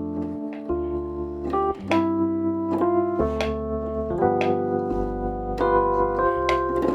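Software electric piano from the Yamaha Montage M plugin playing a slow chord progression: sustained chords over a low bass note, changing about once a second.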